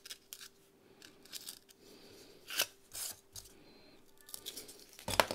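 Small snap-off craft knife slicing through extruded polystyrene foam (Styrodur) in short scratchy strokes, with a louder stroke near the end.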